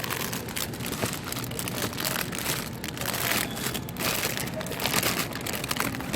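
Irregular crinkling and rustling of plastic packaging as squishy toys are handled and squeezed.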